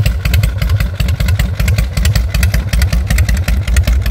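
Harley-Davidson Evolution V-twin motorcycle engine running at idle, with a rapid, uneven pulsing exhaust beat.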